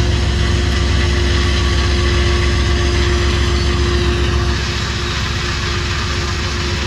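Diesel locomotive engine running steadily close by: a heavy low rumble with a steady hum over it, easing slightly about four and a half seconds in.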